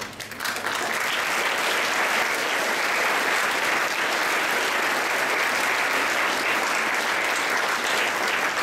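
An audience applauding, a dense steady clapping that starts about half a second in and keeps up evenly.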